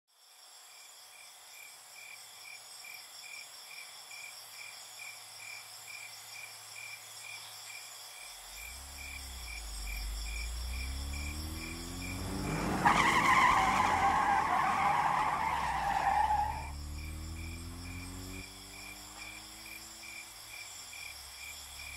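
Crickets chirping in a steady pulse. About a third of the way in a car engine comes up, its pitch rising and falling, then tyres skid loudly for about four seconds near the middle before the engine runs on.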